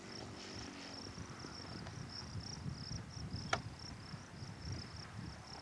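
Crickets chirping steadily in rapid pulses over a low rumble, with one sharp click about three and a half seconds in.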